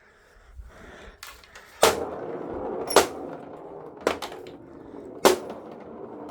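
Loose bed parts being handled and put away: a run of sharp knocks and clacks, about five, a second or so apart, with clattering and rustling between them.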